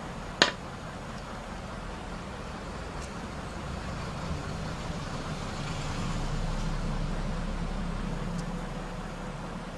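One sharp click about half a second in, as the metal shaft and bushing are worked onto a laser-printer pressure roller, over a steady low background rumble that swells for a few seconds in the middle.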